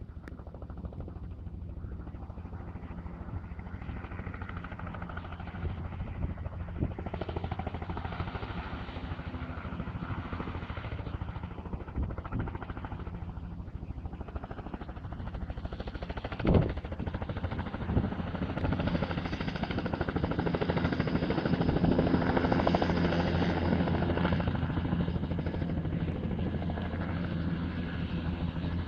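Bell 206 LongRanger helicopter with a single turboshaft engine and two-bladed main rotor, hovering and then flying closer, its turbine and rotor noise growing steadily louder over the second half. A single sharp knock about halfway through.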